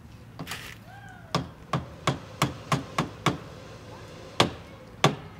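Stainless steel density cup full of asphalt sealcoat being tapped down on a folding table: sharp knocks, a quick run of seven at about three a second, then two more spaced out. The tapping works trapped air out of the sealer so the cup holds a true volume for the weight-per-gallon test.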